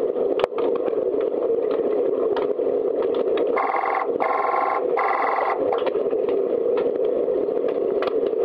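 Underwater pool sound: a steady muffled rumble with scattered clicks and knocks, typical of sticks and puck on the pool floor in underwater hockey. Midway a buzzing signal sounds three times in quick succession, in the manner of an underwater referee's sounder stopping play.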